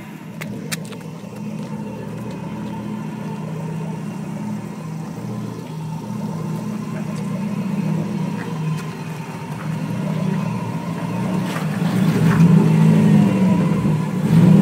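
Turbocharged Hemi V8 in a Ford F100 pickup running at low speed off-road. Its steady engine note grows gradually louder and swells in a brief rev near the end.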